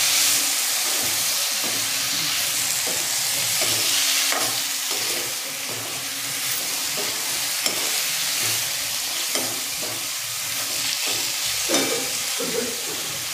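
Sliced ivy gourd (tindora) sizzling in hot oil in a metal kadai while a metal spatula stirs and tosses it, scraping and knocking against the pan now and then.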